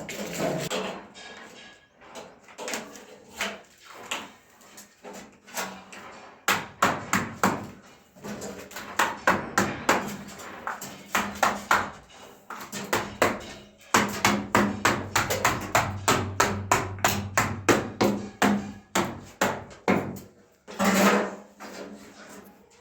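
Rapid series of sharp knocks, about four a second, coming in runs with short pauses, over a faint steady hum.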